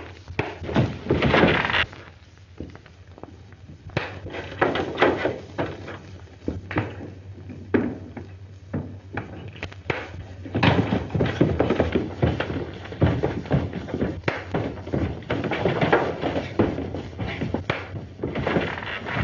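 Staged fistfight on an old film soundtrack: a run of punches, heavy thumps and scuffling feet, over a steady low hum. It eases off about two seconds in and gets busier in the second half.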